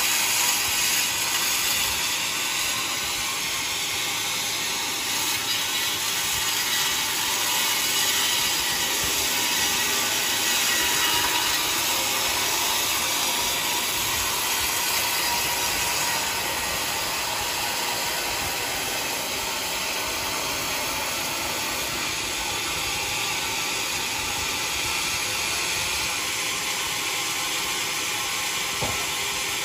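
Sawmill blade cutting through a mahogany log: a steady, continuous mechanical noise with most of its energy in the high range.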